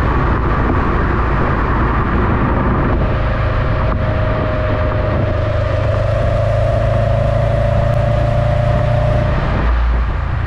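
Stock exhaust of a 2021 Subaru WRX STI's turbocharged 2.5-litre boxer four, heard from the tailpipes while driving: a deep rumble with a steady tone that climbs slowly over several seconds, then drops away near the end as the throttle comes off or the car shifts. Road and wind noise on the rear-mounted camera run under it.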